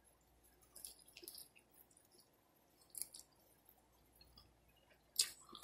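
Close-miked chewing of a fried chicken wing: soft wet mouth clicks and smacks, a cluster about a second in, another at about three seconds, and a louder one near the end.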